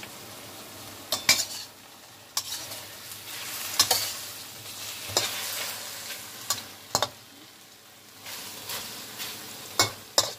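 Metal spatula stirring and scraping in a wok of food sizzling in hot oil, with sharp clinks of the spatula on the pan every second or so.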